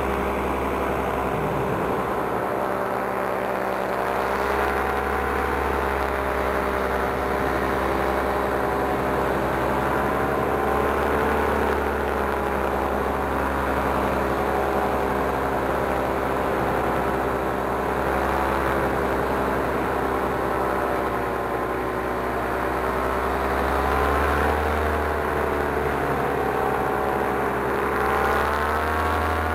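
Paramotor engine and propeller running steadily in flight, the engine's pitch drifting gently up and down and rising a little near the end.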